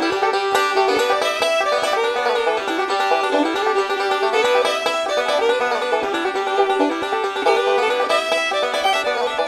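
Instrumental background music: a fast run of plucked-string notes, banjo-like, at a steady level.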